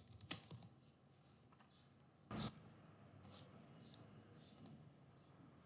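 Faint keystrokes on a computer keyboard, scattered and irregular, with one louder click about two and a half seconds in.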